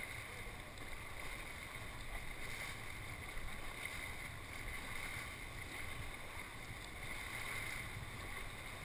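Steady rush of a large, choppy whitewater river heard from an inflatable raft, with wind rumbling on the microphone.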